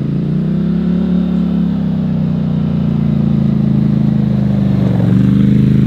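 Sport ATV engine running at a steady, even speed as the quad rides toward the listener, getting a little louder as it approaches, with a brief slight dip in pitch about five seconds in.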